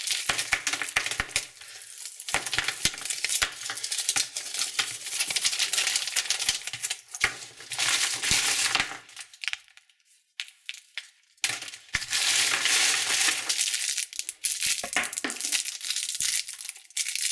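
Candy wrappers crinkling and tearing as they are unwrapped by hand, a dense crackle with small clicks. It pauses briefly about ten seconds in, then resumes.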